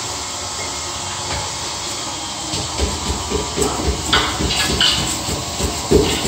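Steady hiss of liquid nitrogen boiling off as ice cream is made, with irregular knocks and clatter joining in from about three seconds in.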